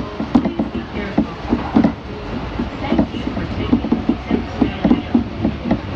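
Kintetsu electric train running, heard from inside the passenger car: a steady running rumble with many short, irregular knocks from the wheels on the rails.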